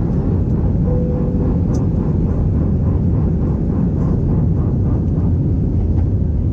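Airliner cabin noise in flight: the steady, loud rumble of the jet engines and airflow heard from inside the cabin.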